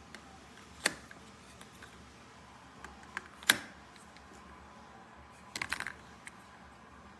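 Scattered sharp clicks over a faint steady hiss: one about a second in, a louder one about three and a half seconds in, and a quick run of several near six seconds.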